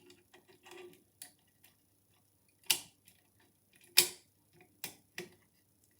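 Pick wire lifting the levers of an old Union mortice lever lock under tension, giving sparse, irregular small metallic clicks and ticks, two louder ones near the middle. The lock is being picked closed, its levers set one by one so their notches line up.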